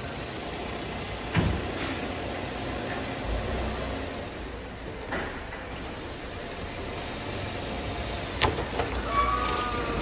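Power drill cutting a hole through a carbon fibre bonnet near the end, over steady garage noise with a few sharp knocks.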